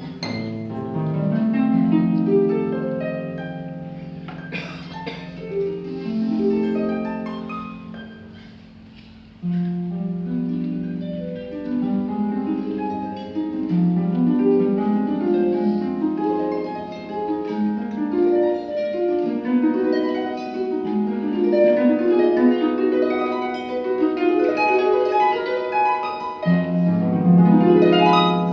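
Pedal harp played solo: plucked notes ringing over a low held bass, with runs and arpeggios. The playing thins out and grows quieter about eight seconds in, then resumes fuller and louder about a second later.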